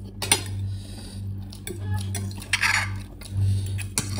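A metal fork clinking against a dish while ramen noodles are eaten, a few scattered clinks, over a steady low hum.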